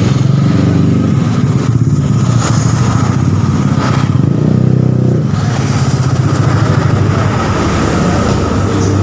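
Vespa scooter engine running steadily, revved briefly about four seconds in and then settling back.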